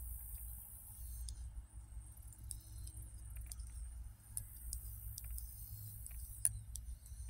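Knitting needles clicking and tapping against each other at an uneven pace as stitches are worked, with one sharper click about six and a half seconds in. A steady high hiss runs underneath.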